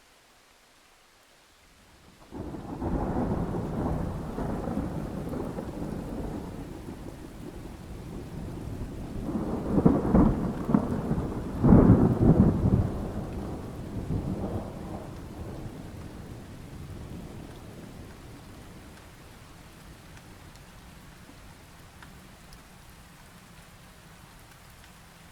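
Thunder rolling over rain: a low rumble breaks in suddenly about two seconds in, swells to two loud peals near the middle, then slowly rumbles away, with the steady hiss of rain underneath.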